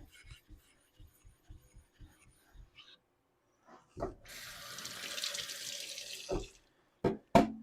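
Water tap running for about two seconds, with a knock as it starts and as it stops, followed by two sharp clicks near the end.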